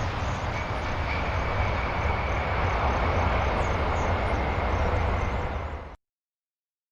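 Large aircraft's engines running, a steady dense noise with a faint high whine over it; the sound cuts off abruptly about six seconds in.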